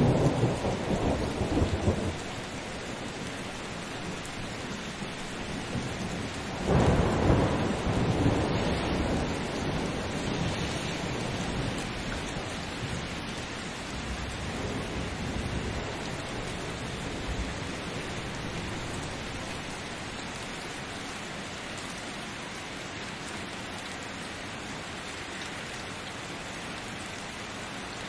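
Thunderstorm: steady rain with rolling thunder, one rumble dying away at the start and a louder roll about seven seconds in that fades over several seconds, leaving rain alone, slowly quieter.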